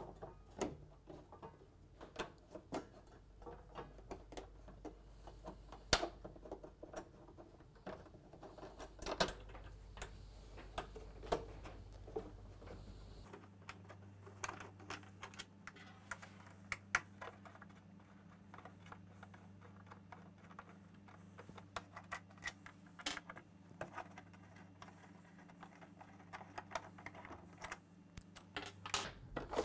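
Irregular small clicks and taps of hand-tool work: a 4mm Allen key working fixings out of a cylinder mower's casing, with screws and small metal parts set down on a wooden workbench.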